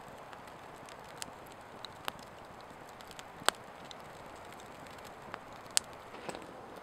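Log campfire burning with a soft steady hiss and scattered sharp crackles and pops, the two loudest about three and a half and six seconds in.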